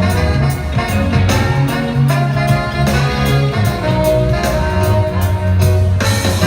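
Loud band music with a heavy bass line and a steady drum beat of about two hits a second.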